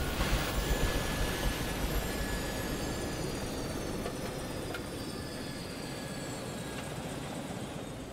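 Air ambulance helicopter's turbines and rotor winding down just after landing: a steady rush with whines that slowly fall in pitch, fading gradually, while the low rumble dies away about five seconds in.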